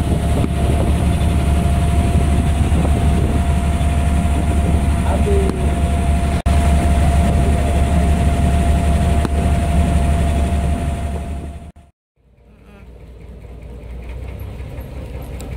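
An engine running steadily, a deep rumble with a constant whining tone above it, stopping abruptly about twelve seconds in.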